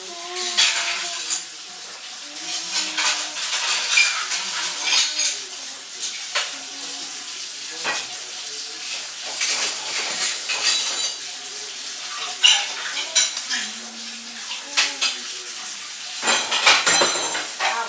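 Clatter and clink of dishes and cutlery, in many separate knocks, with a short rush of running water near the end.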